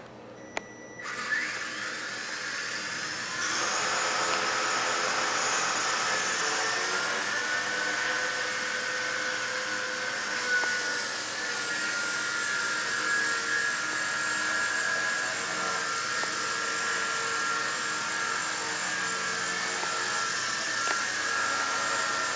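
Helimax Novus CP micro electric RC helicopter's motor and rotor whine, rising in pitch about a second in and, from about three and a half seconds in, running louder and steady in flight with a slight wavering in pitch.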